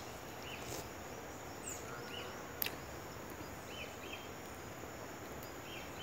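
Faint rural garden ambience: a steady insect drone and background hiss, with a few short bird chirps scattered through and a single soft click about two and a half seconds in.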